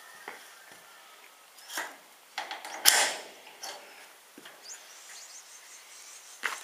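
Scattered knocks, clunks and rubbing as a person climbs the rubber-matted tailgate ramp into a horse float and handles its fittings inside, the loudest a sharp knock about three seconds in.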